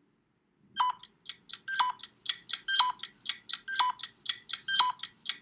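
Electronic clock-like ticking sound effect, about four light ticks a second with a stronger beep-like tick once a second, over a faint low hum. It works as a countdown timer while the quiz question waits for its answer.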